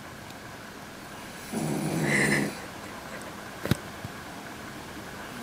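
A sleeping woman snoring once, a single snore about a second long about one and a half seconds in. A sharp click follows about two seconds later.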